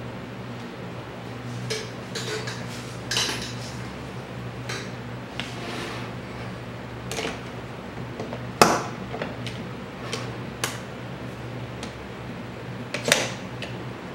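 Aluminium injection-mould halves and quick-grip bar clamps handled on a wooden tabletop: a series of clinks, clicks and knocks as the mould is put together and clamped shut. The loudest knocks come about eight and a half seconds in and again near the end, over a steady low hum.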